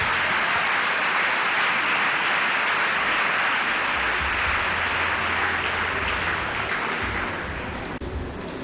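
Large audience applauding, the clapping thinning out near the end.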